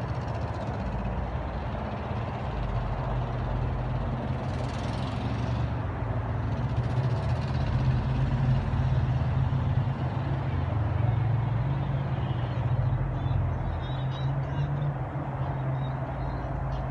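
Steady low engine hum, with a brief hiss about five seconds in.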